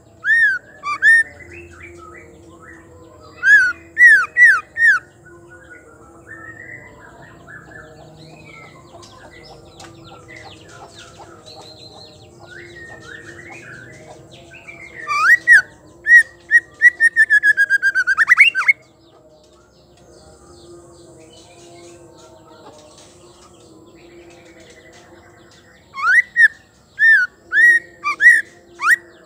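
White-rumped shama (murai batu), a female by the uploader's account, giving loud whistled phrases: short slurred whistles in quick groups at the start, about four seconds in and near the end, and a long rapid trill about halfway through. Faint twittering fills the gaps between phrases.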